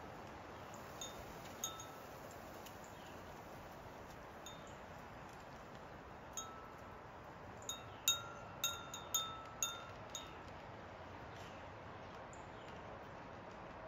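Wind chime ringing in scattered, decaying strikes, with a quick run of about six strikes around eight to ten seconds in, over a faint steady hiss.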